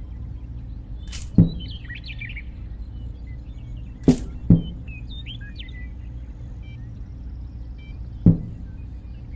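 Four sharp knocks, the loudest sounds, the middle two close together, over birds chirping and a steady low hum.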